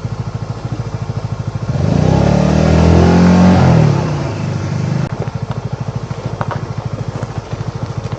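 Motorcycle engine running at low revs with an even, pulsing beat. About two seconds in it revs up for a few seconds, its pitch rising and then falling back to the low beat.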